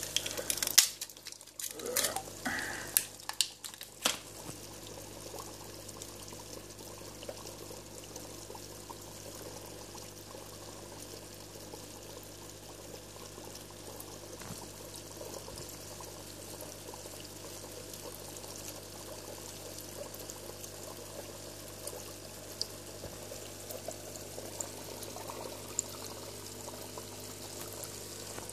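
Sharp plastic clicks and crackles in the first few seconds as a frozen fish-food cube is pressed out of its blister pack. Then aquarium water trickles steadily, with a faint steady hum under it.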